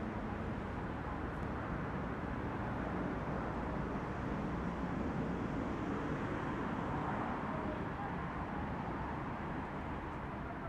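Steady outdoor background noise with a low, even rumble like distant road traffic.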